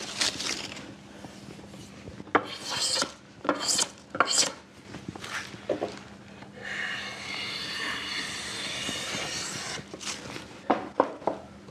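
Japanese hand plane (kanna) pulled along a softwood timber, its blade shearing off shavings: a few short strokes, then one long continuous stroke a little past halfway, as the carpenter takes down the high spot on one face. A few sharp knocks follow near the end.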